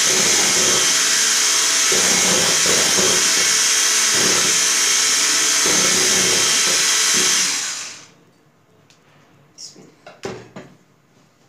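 Electric hand mixer whipping cream in a bowl, running steadily, then switched off about eight seconds in. A few light knocks follow.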